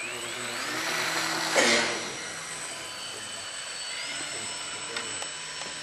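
Small electric RC model plane's motor and propeller whining, the pitch rising steeply in the first second as the throttle opens for takeoff, then holding high with another step up around four seconds in. A short, loud rushing noise about a second and a half in.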